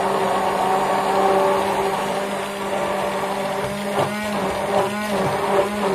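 Braun hand (stick) blender motor running steadily, whipping instant coffee, sugar and water into a thick foam in a glass jar. The steady hum wavers briefly a few times in the second half as the blade churns the thickening foam.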